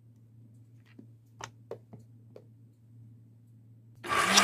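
Light plastic clicks and taps as the lid and jar of a toy kitchen mixer are fitted together, a few scattered over a couple of seconds. Near the end the toy mixer's small electric motor starts suddenly with a loud whirring that wavers slightly in pitch.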